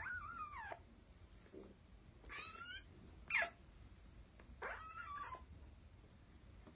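Kitten mewing: four high calls spread across a few seconds, the short, sharply falling one near the middle the loudest.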